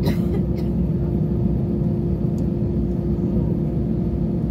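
Jet airliner's engines and cabin noise heard from inside the cabin while taxiing: a steady low rumble with a constant hum. A short click sounds right at the start.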